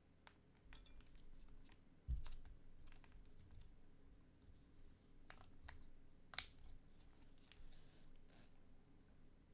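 Faint, scattered small clicks and taps of keyboard parts being handled, with a soft thump about two seconds in and a sharper click about six and a half seconds in.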